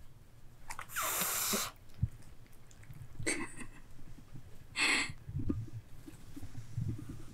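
British Shorthair kittens shifting about on a cushion in a wicker cat bed, with three short breathy bursts of air from a kitten: the longest about a second in, two shorter ones later.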